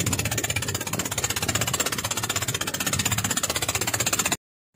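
Motorized outrigger boat (bangka) engine running steadily, heard on board as a fast, even pulsing; it cuts off abruptly near the end.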